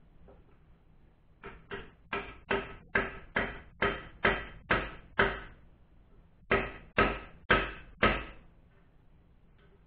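Steel hammer striking a bearing driver, driving a new swing arm bearing race into a Honda Valkyrie swing arm. About ten sharp, even blows that grow louder, then a short pause and four more heavy blows.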